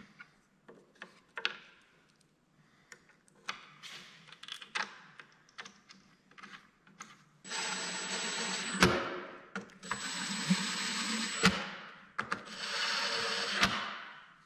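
Light clicks and clinks of screws and washers being handled, then a cordless impact driver runs three times for about a second and a half each, driving screws with washers through a wooden leg frame into a slab. Each run ends with a sharp snap as the screw seats.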